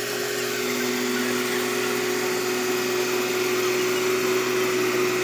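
A steady machine hum: a constant droning tone over an even hiss, with a second lower tone joining briefly about a second in.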